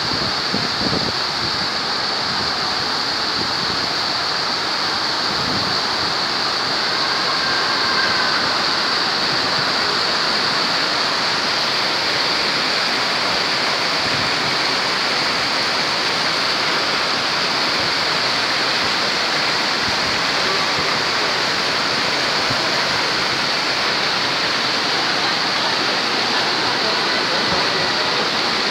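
Varone waterfall: a steady, loud rush of falling water, even and unbroken throughout.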